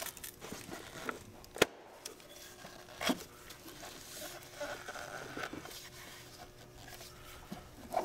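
Plastic fuel rail cover being pressed and snapped into place by gloved hands on a Volvo 850's engine: a sharp click a little over a second and a half in, another about three seconds in, with lighter ticks and faint rubbing and scraping between.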